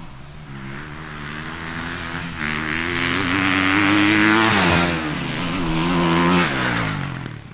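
Motocross dirt bike engine revving hard as the bike passes close on the track, growing louder through the middle. The pitch drops once about five seconds in, climbs again, then fades away near the end.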